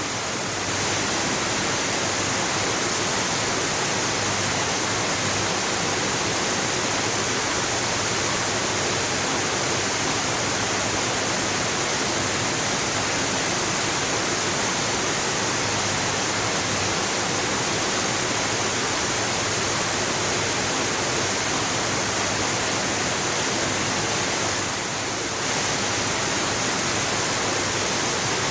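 Waterfall, water pouring and crashing in a steady, dense rush, dipping slightly for about a second near the end.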